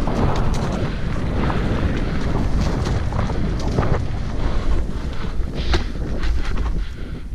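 Wind buffeting the microphone of a camera on a mountain bike riding fast down a dirt forest trail, a steady low rumble. Sharp knocks and rattles come through here and there as the bike runs over the rough ground.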